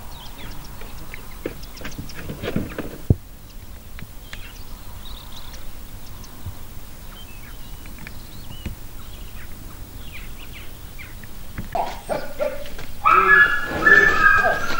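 A sheepdog barking loudly and repeatedly as it works a cow, starting near the end. Before it there are only small birds chirping.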